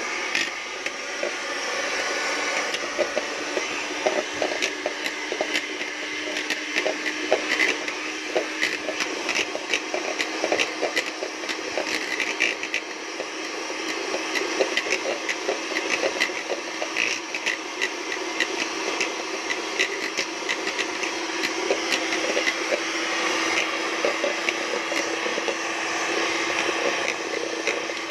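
Electric hand mixer running steadily, its beaters whipping chilled cream toward soft peaks, with a constant motor hum and frequent clicks of the beaters against the bowl.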